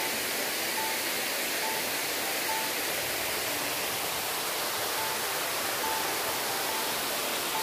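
Steady rushing of water pouring down a stepped stone dam spillway into a pool.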